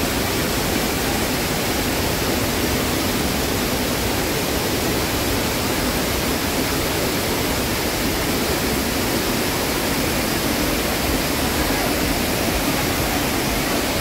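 Waterfall rushing: a steady, unbroken roar of falling water with no pauses or changes.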